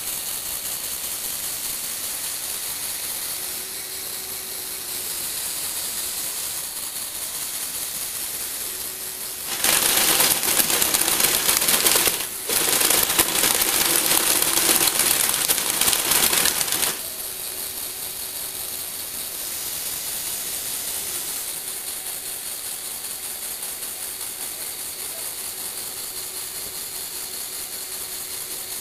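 Lego Technic tracked vehicle's electric motors and gear trains whirring as it crawls on its tracks and works its tilting platform. The sound gets much louder about ten seconds in for some seven seconds, with a brief break partway through, then drops back to a steady whir.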